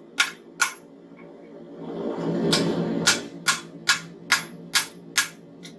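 Hand hammer striking a hot railroad spike on an anvil to straighten it: two blows, a pause of a second and a half, then a run of about seven blows at roughly two a second. A steady low rumble runs underneath and swells about two seconds in.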